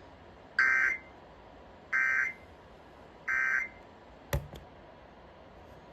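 Emergency Alert System end-of-message code: three short, identical bursts of SAME digital data tones, a raspy warble, about a second apart, closing out the required monthly test. A sharp click follows about four seconds in.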